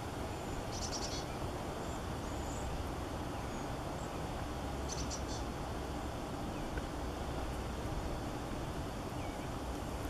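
Small songbirds calling: two brief high chirping trills, about a second in and again about five seconds in, with a few faint thin whistles between. Under them runs a steady low outdoor rumble.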